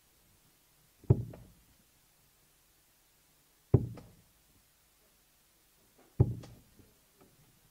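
Three steel-tip darts hitting a sisal bristle dartboard, one at a time about two and a half seconds apart, each a sharp thud that dies away quickly.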